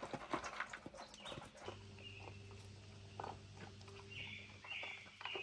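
Dogs eating dry food from bowls, a quick run of crunching and clicking. It stops about a second and a half in, giving way to a faint steady low hum and three or four short bird chirps near the end.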